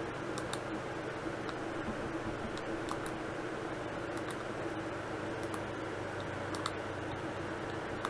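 Scattered clicks of a computer mouse, several in quick pairs like double-clicks, over a steady hum.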